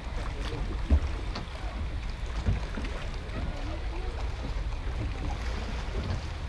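Wind buffeting the microphone as a steady low rumble, under the faint chatter of distant voices, with two low thumps about one and two and a half seconds in.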